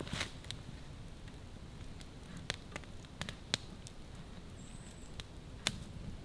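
Small wood campfire crackling softly, with scattered sharp pops.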